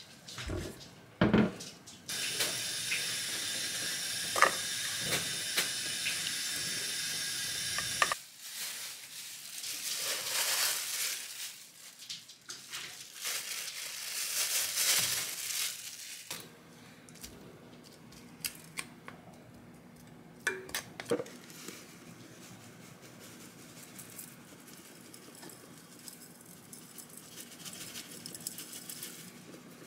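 Kitchen food-preparation sounds: a knock from the metal pot and its lid, then a steady hiss for about six seconds that cuts off suddenly. A plastic bag then rustles and crinkles as food is tipped into the pot, and near the end there are a few light clicks.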